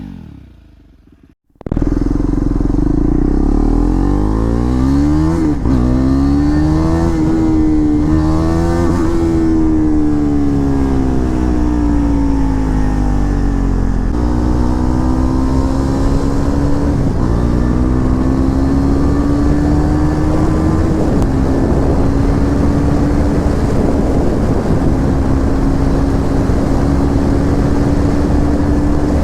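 KTM Duke 390 single-cylinder engine through an aftermarket SC-Project full-system exhaust, heard on the move. After a brief silent gap it starts up loud, rises and falls through several rev changes, then settles to a nearly steady cruising note.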